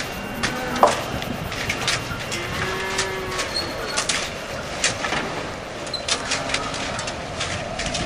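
Cattle lowing amid a steady work ambience, with repeated sharp knocks of hand tools throughout.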